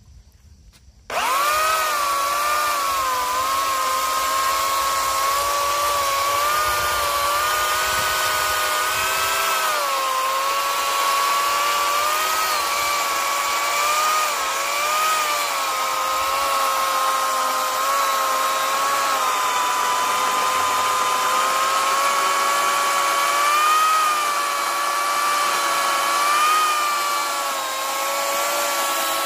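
Makita corded electric chainsaw starting up about a second in and cutting through a thick log. Its motor gives a steady whine that wavers and dips slightly in pitch as the chain bites into the wood.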